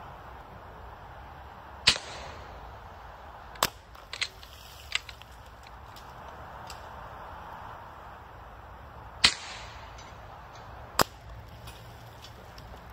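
Two shots from a regulated PCP bullpup air rifle (AEA .25 caliber Challenger), each a sharp crack, about seven seconds apart. Quieter clicks follow each shot.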